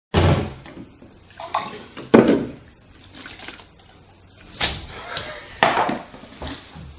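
A series of short splashes and knocks around a kitchen counter: liquid flung from a drinking glass and a glass and plastic containers handled and set down. About six separate sounds, the loudest about two seconds in.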